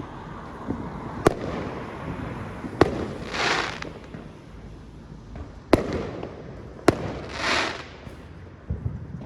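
Fireworks going off around the neighbourhood: four sharp bangs a second or more apart, and twice a short crackling rush.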